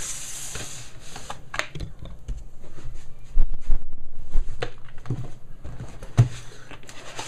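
A cardboard keyboard box being opened and its contents handled: cardboard and packaging rubbing, sliding and rustling, with scattered knocks and clicks, loudest a few seconds in.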